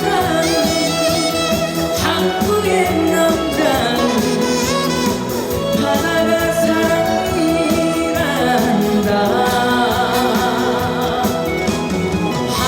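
A trot song performed live: a voice singing with wide vibrato over a backing band.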